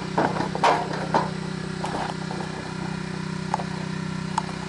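Gas-engine pressure washer running steadily. A few short knocks and clatters sound in the first second or so.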